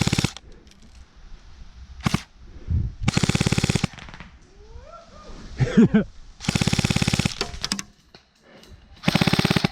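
Airsoft gun firing full-auto in several bursts of rapid, even shots, one short and two lasting about a second. A brief shout cuts in between the bursts about six seconds in.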